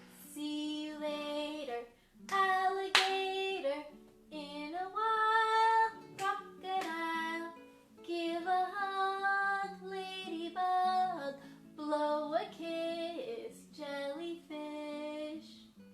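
A woman singing a slow song over plucked string accompaniment.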